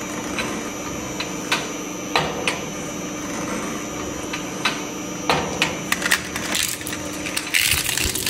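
Industrial twin-shaft shredder running with a steady hum and whine and a few scattered knocks. In the last few seconds a die-cast toy car is crunched and torn apart between its cutter discs, in a dense run of cracking that is loudest near the end.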